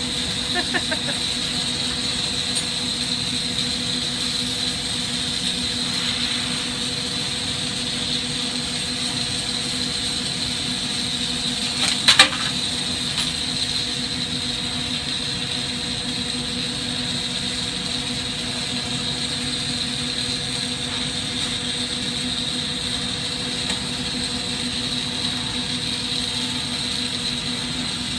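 Steady rushing noise of a glass hot shop's propane-and-oxygen torches and overhead exhaust hood running, with a constant hum under it. A single short, sharp knock about twelve seconds in.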